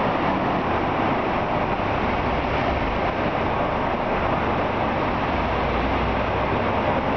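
Steady rumble of diesel multiple-unit trains idling at the platforms, with a low engine hum underneath, echoing under the station's enclosed roof.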